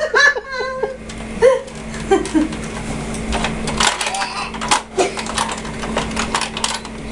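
Irregular light clicks and clatter of small plastic toy pieces being handled, a Playmobil ambulance and its figures, starting about three seconds in, over a faint steady hum.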